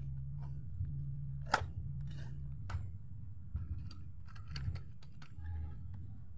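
Scattered metal clicks and light knocks as a hex key and scooter parts are handled while a pedal scooter is taken apart, with one sharp click about a second and a half in and a quick run of clicks near the end.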